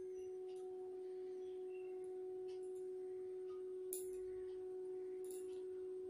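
A steady, even hum at one pitch, with faint ticks now and then, the clearest about four seconds in.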